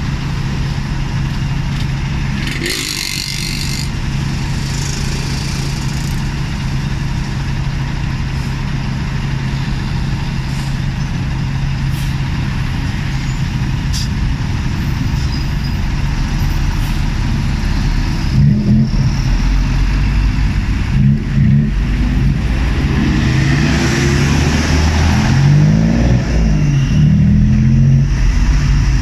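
Tuk-tuk's small engine idling steadily in stopped traffic, then revving up and down as it pulls away, from about two-thirds of the way through. A short hiss of air sounds about three seconds in.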